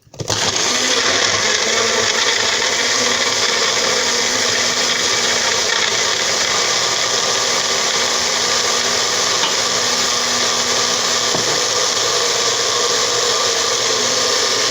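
Personal blender with its cup turned upside down on the motor base, blending avocado, lemon juice and water into a smoothie. The motor starts at once, runs loud and steady, and cuts off abruptly at the end.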